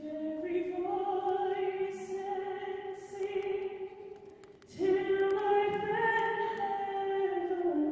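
Unaccompanied wordless singing in long held notes. One phrase steps up in pitch and is held, a brief break comes about four and a half seconds in, then a second held phrase steps back down near the end.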